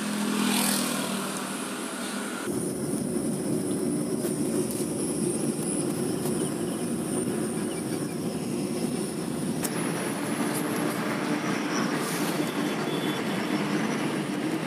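Steady road and tyre noise of a car driving on a highway, heard from inside the cabin. The noise changes abruptly about two and a half seconds in and again near ten seconds, turning brighter and hissier.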